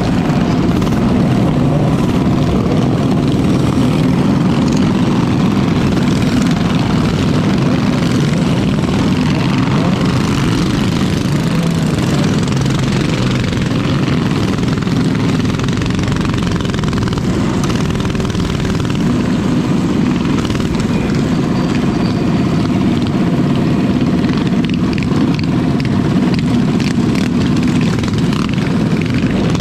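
Mini bike engines running, a steady, loud drone with no clear rises or drops in pitch.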